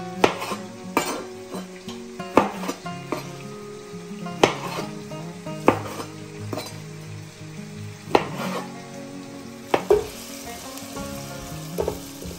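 Chef's knife cutting through fried tofu and knocking on a plastic cutting board, sharp irregular knocks every second or two, over the steady sizzle of onion and garlic frying in oil. Near the end a spatula stirs the frying onions in the pan.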